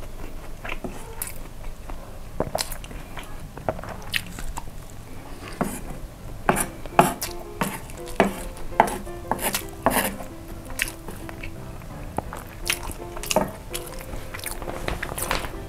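Wooden spoon scraping and scooping fried rice across a wooden board, mixed with chewing: a string of short clicks and scrapes, busier in the second half.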